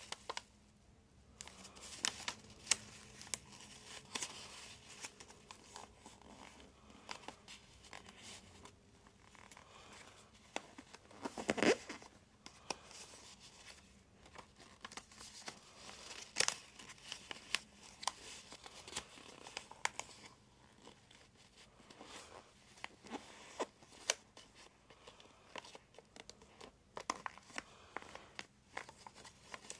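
Origami paper being folded and creased by hand: scattered crisp crinkles, rustles and sharp paper snaps as folds are pressed flat. The loudest crackle comes about twelve seconds in.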